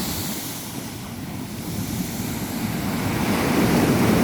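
Rough sea surf washing in on the shore, the wash swelling louder in the second half.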